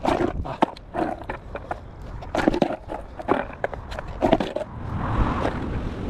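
Skateboard clacking and slapping on a gritty tarmac path during trick attempts: several sharp knocks of the deck and feet landing on it, with a steadier rumbling noise from about five seconds in.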